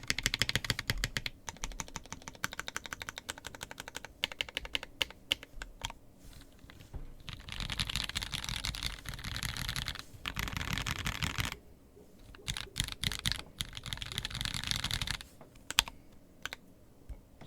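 Typing on a mechanical keyboard with unlubricated Parallel Limited Pewter light tactile switches (UHMWPE housing, POM stem) on a brass plate, a clacky rumble of keystrokes. Fast, steady typing at first, a few pauses, then stretches of very rapid keystrokes, stopping just before the end.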